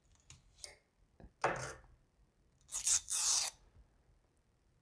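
Snap-off utility knife slicing excess 3M 1080 vinyl wrap film off a metal grill bar. A few light clicks, a short scrape about a second and a half in, then a louder, longer hissing scrape around three seconds in.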